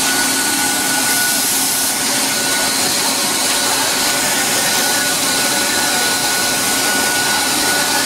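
Plastic drip-irrigation pipe extrusion line running: a loud, steady machinery hum and hiss with a constant high whine over it.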